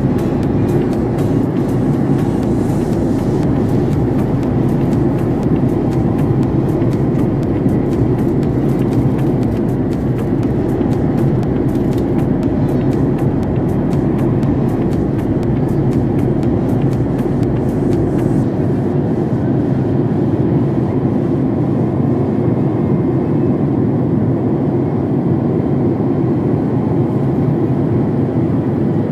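Steady cabin drone of a Boeing 767 airliner in flight: a constant, low engine and airflow roar, with a faint fast crackle over it that stops about two-thirds of the way through.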